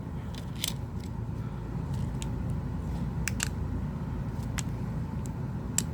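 Scattered small clicks and taps from hand work on a phone repair, about half a dozen spread over a few seconds, over a steady low hum.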